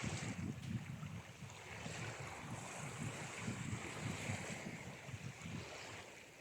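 Ocean waves washing on a shore, a steady wash of surf that swells and eases.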